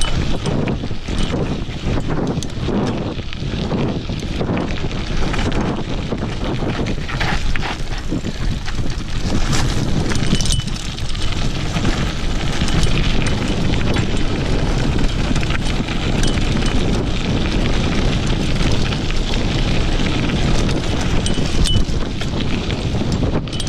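Mountain bike descending a rough dirt and gravel trail at speed: a constant rush of wind on the microphone over the rumble of the tyres and frequent rattles, clicks and knocks from the bike over the bumps.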